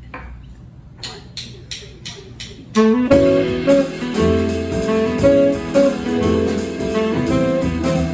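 About six evenly spaced clicks count off the tune, then a jazz quartet of saxophone, piano, bass and drums comes in together about three seconds in, with the saxophone holding the melody notes.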